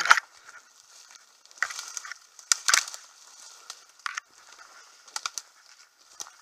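Branches and twigs brushing and snapping against a person forcing through dense forest undergrowth, with leaf litter crunching underfoot: irregular cracks and rustles, the sharpest right at the start.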